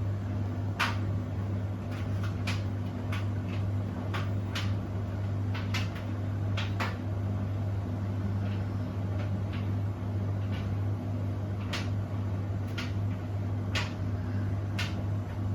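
Beko WTK104121W washing machine running mid-cycle: a steady low motor hum with irregular sharp clicks and taps, about twenty of them, scattered unevenly throughout.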